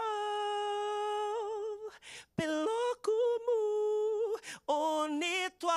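A man singing a cappella in Lingala in a high voice: one long steady held note that wavers as it ends, a short break with a breath, a second long held note a little higher, then a short sung phrase near the end.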